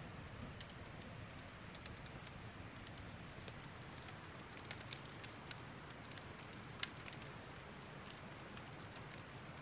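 Wood campfire crackling faintly, with scattered sharp pops and ticks over a steady low rush of stream water.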